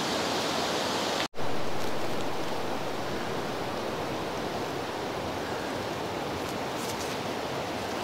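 Steady rush of fast-flowing river water, an even hiss-like noise with no distinct events, broken by a sudden cut about a second in before the same rushing sound resumes.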